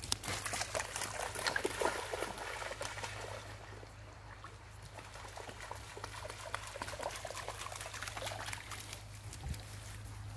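A dog splashing through shallow river water. Heavy splashing as it plunges in, quieter lapping as it swims, then splashing again about eight seconds in as it wades back out.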